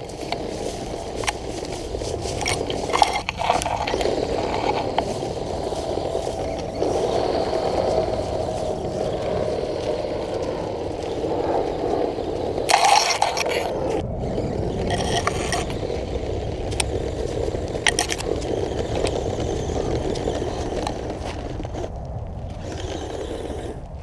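Small electric RC drivetrain whirring steadily, with dry grass and brush scraping and rustling against it as it crawls through snowy grass. There is a louder scrape about thirteen seconds in.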